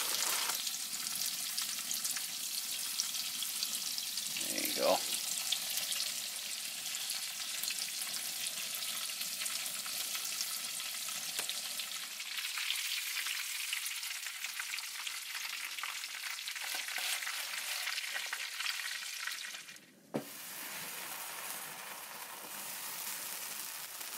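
Breaded chicken breasts shallow-frying in avocado oil, a steady sizzle with dense crackling. A short squeak sounds about five seconds in, and the sizzle cuts out briefly about twenty seconds in, then carries on a little quieter.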